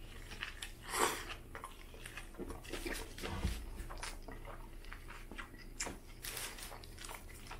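Close-up eating sounds: a bite into a Subway Italian BMT sub, then chewing with wet, crackly mouth noises. The loudest crunch comes about a second in, followed by a run of small clicks and squelches.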